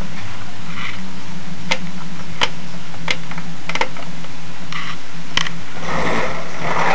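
Sony TC-WR710 cassette deck playing a tape: a steady low hum with scattered sharp clicks, and a rustle near the end.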